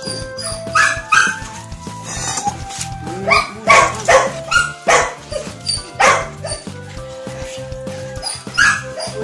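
A dog barking, about ten sharp barks with most of them bunched together in the middle, over background music.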